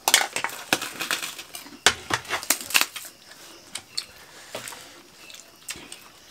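Sharp crunching and clicking from a meal being eaten by hand off banana leaves, dense for the first three seconds and then sparser, with a few light clinks.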